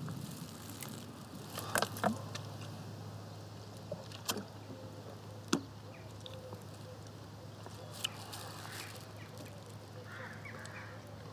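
Quiet outdoor background with a steady low hum and a few scattered short clicks and taps, the loudest about two seconds in.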